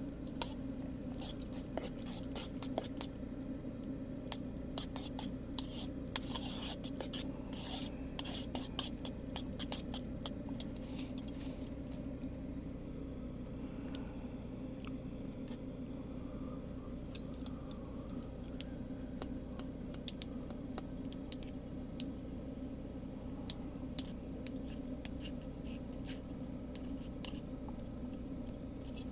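Metal utensils scraping and clicking against a pot or dish, busiest in the first dozen seconds and occasional after that, over the steady low hum of a diesel air heater running.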